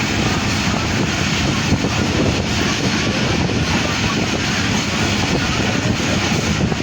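Steady running noise of a passenger train in motion, heard from on board.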